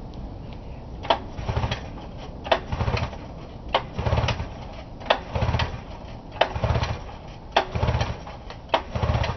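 Recoil starter cord of a 1978 Arctic Cat Pantera snowmobile pulled seven times, about every second and a quarter. Each pull is a sharp click followed by a short whirr as the 500 cc fan-cooled Suzuki two-stroke spins over without firing, its spark plugs out, to prime fuel into the carburettor float bowl.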